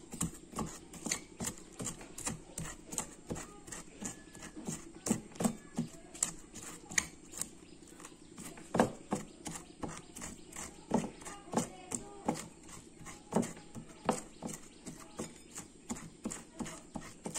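A small green eggplant used as a pestle, pounding and grinding green chillies with coarse salt in a metal bowl: uneven knocks about two or three a second, with a gritty scrape of salt between them.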